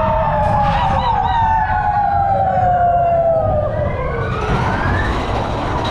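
Several riders letting out long, drawn-out whoops that slide slowly down in pitch, one rising near the end, over the continuous low rumble of the Big Thunder Mountain Railroad mine-train coaster running on its track.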